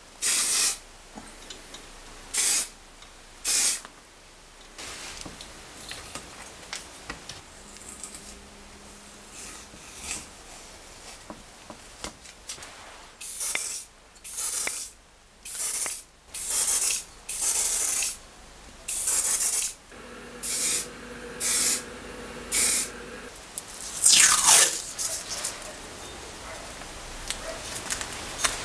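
Aerosol spray paint can spraying in more than a dozen short bursts of hiss, each under a second, with short pauses between them, as the drill's metal parts are given a light coat.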